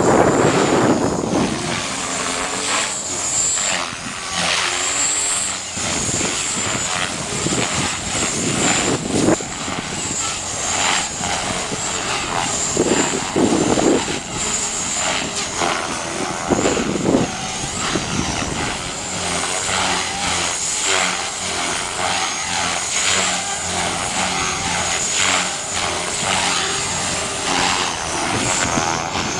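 A 450-size radio-controlled helicopter in flight: a steady high whine from its motor and gears over the rushing of its rotor blades, which swells several times as it manoeuvres.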